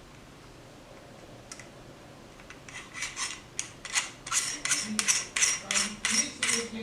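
Metal parts of an AR-9 buffer tube and brace assembly being worked by hand, giving short rasping scrapes. About a dozen strokes come at roughly three a second, starting about three seconds in.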